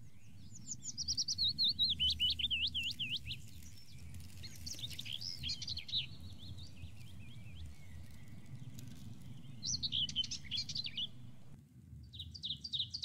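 Songbird singing: three phrases of rapid, repeated high chirping notes with short pauses between, and a brief fourth phrase near the end, over a low steady background rumble.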